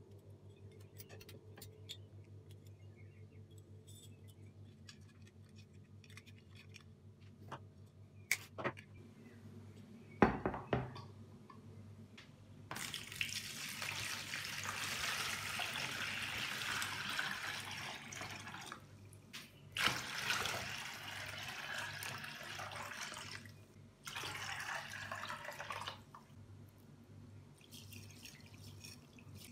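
Water poured from a plastic bowl into a plastic tub in three pours with short breaks between them. Before the pouring there are a few sharp knocks and clicks.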